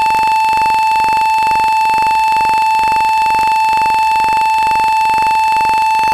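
Loud steady electronic tone held on a single pitch, the note A, with evenly spaced overtones and a faint pulse about three times a second.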